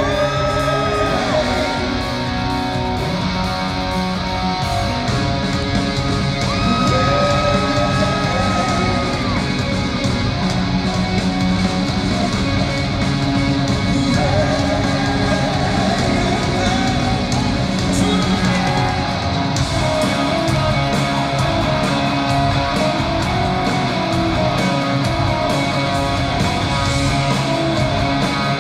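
Rock band playing live: electric guitars, bass and drums, with a male vocalist singing a few long held lines over them.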